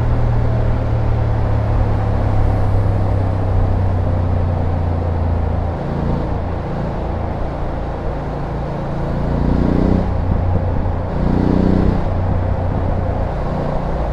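BMW F850GS parallel-twin engine running under way. It holds a steady note, eases off about six seconds in, then the engine note rises twice in short pulls near the end as the bike accelerates.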